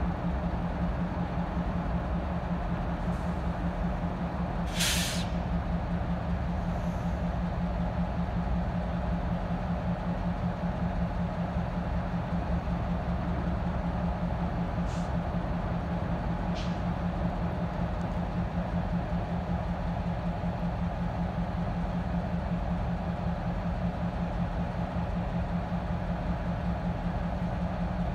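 Utah Railway GP38-3 diesel-electric locomotive's EMD two-stroke engine running steadily with a constant low drone. A short sharp hiss of air from the air brakes sounds about five seconds in, with two fainter, briefer hisses near the middle.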